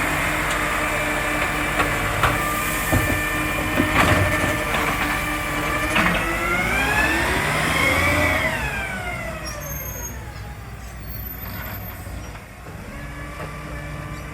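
Side-loader garbage truck's diesel engine running, its exhaust leak repaired. A few sharp knocks come in the first six seconds, then the engine revs up and dies back down over about four seconds.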